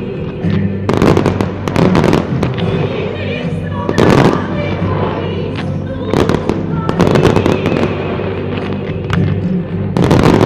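Fireworks display set to music: fireworks bang and crackle over a music soundtrack with sustained tones. Louder reports come about a second in, around four seconds in, and again near the end.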